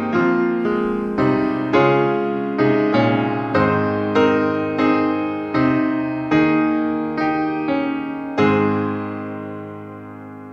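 Grand piano playing the instrumental close of a hymn: chords struck at a steady pace, about one or two a second, ending on a final chord about eight seconds in that is held and slowly fades.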